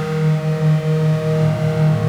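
Soma Labs Lyra-8 analog drone synthesizer holding a low, sustained drone with a few higher tones above it. The drone throbs in a quick, uneven pulse, several beats a second.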